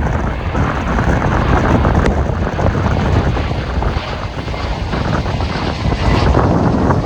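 Jet engines of an Airbus A321-231 (IAE V2500 turbofans) running as the airliner comes in to land, a steady rumble mixed with strong wind buffeting the microphone.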